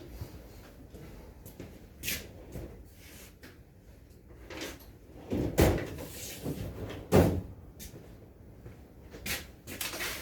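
Knocks, clunks and clicks of work on a storm door being installed, with two loud thumps near the middle and lighter taps and clicks between.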